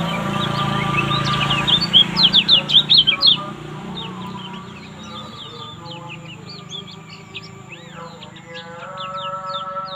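Kecial kuning, a yellow white-eye, singing rapid high chirps, loudest in a dense run about two to three and a half seconds in, over background music.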